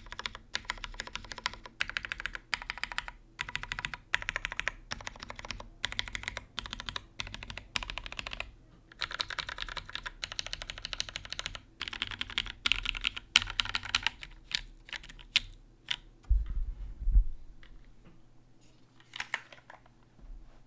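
Mechanical keyboard with Vintage Black linear switches on an aluminium plate and GMK keycaps, with keys and modifiers spammed in fast bursts of repeated presses. Near the end the bursts thin to scattered single presses, and there is a low thump a few seconds before the end.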